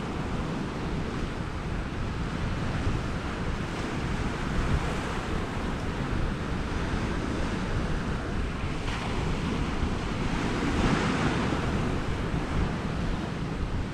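Sea waves washing against a rocky shore, with wind buffeting the microphone as a low rumble. A wave surges louder about ten seconds in, then eases.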